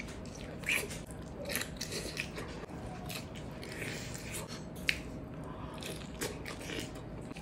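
Close-up mouth sounds of eating salted egg shrimp by hand: biting and chewing, with scattered small crunches and wet smacks, and one sharper crunch about five seconds in.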